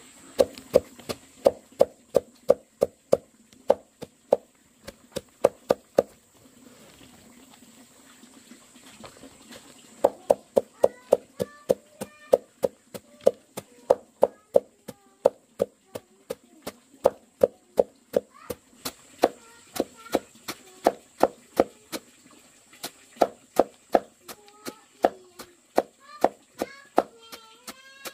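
Knife chopping on a wooden cutting board in a steady run of sharp strokes, about three a second, with a pause of a few seconds in the middle. Short high chirps sound over the strokes in the second half.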